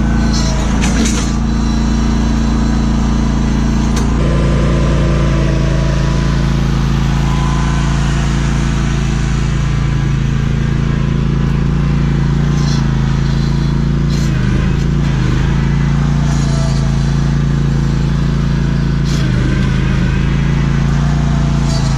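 Lawn mower engine running steadily at working speed while mowing, its pitch dipping briefly a few times.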